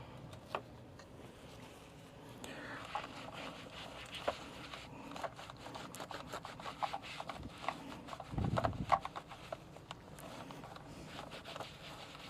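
Light scraping and rubbing with scattered small clicks as an instrument cluster part is cleaned by hand, with a dull low bump about eight seconds in.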